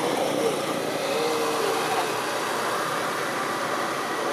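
Steady outdoor background noise with no clear source, with two faint, brief high calls about half a second and a second and a half in.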